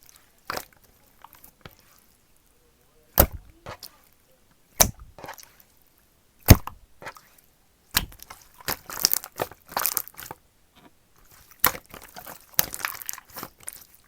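Slime being squished and folded by hand: several sharp pops of trapped air at irregular intervals, with stretches of fine crackling in the second half.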